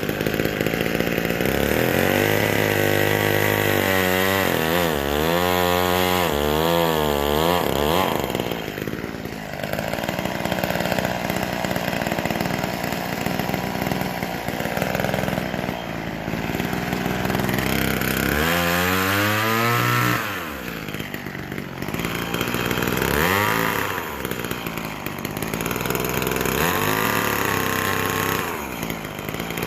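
McCulloch Mini Mac 120 two-stroke chainsaw running while cutting into a pumpkin. The engine revs up and down in quick swings for several seconds near the start and again past the middle, with shorter rises toward the end.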